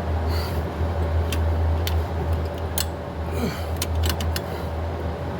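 Irregular sharp clicks and taps of tools and small metal parts being handled, over a steady low hum.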